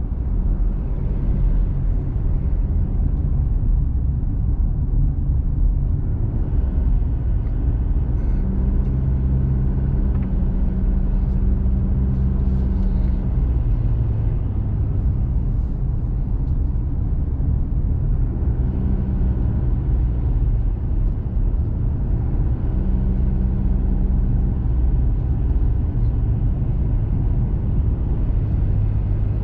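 Diesel four-wheel-drive vehicle driving uphill, a steady low rumble of engine and tyres on the road heard from inside the cabin. The engine hum rises and falls in pitch now and then, about a third of the way in and again later on.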